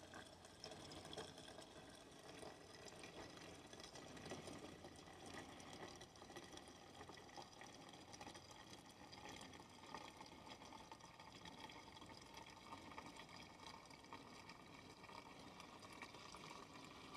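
Faint sound of gasoline being poured into a container, a steady low trickle.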